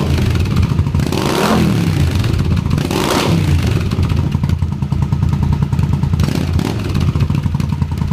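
Honda CX500's liquid-cooled V-twin running through a short cone-shaped exhaust, blipped twice, about a second and a half in and again about three seconds in, then settling back to idle. It stutters a bit because the carburettors are not yet tuned.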